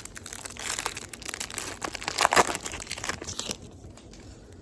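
A 2025 Topps Chrome baseball card pack's wrapper being torn open and crinkled by hand. The dense crackling rustle builds to its loudest about two and a half seconds in and dies away by about three and a half seconds.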